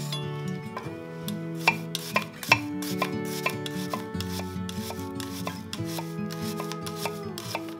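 A chef's knife dicing an onion on a wooden cutting board: a run of quick knife strikes and slicing, about three a second, with two sharper knocks a couple of seconds in. Soft background music with held notes plays under it.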